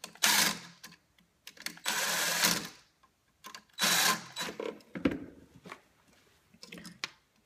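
Wires being fastened under the screw terminals of an electrical outlet: three bursts of scraping and rasping, with small clicks and taps between them.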